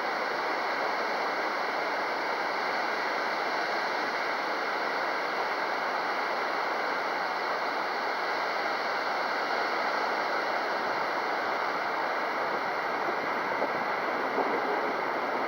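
Steady wind noise, an even hiss with no change in level.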